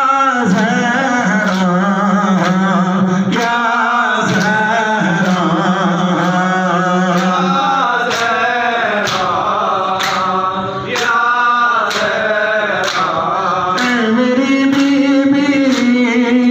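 A male reciter sings an Urdu noha, a Shia lament, into a microphone, with other men's voices joining him. Under the singing, a steady beat of slaps comes a little more than once a second: mourners beating their chests in matam. The voice moves to a higher pitch near the end.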